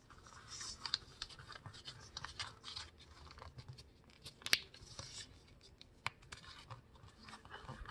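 Sheet of printer paper being folded and creased by hand: faint rustling and sliding, with a few sharp crinkles as the folds are pressed down, the loudest about halfway through.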